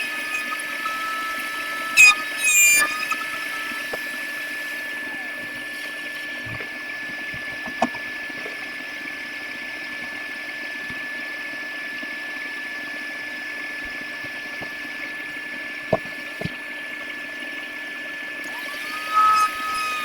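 Handheld electric wood router running steadily with a constant whine, with a few light knocks now and then.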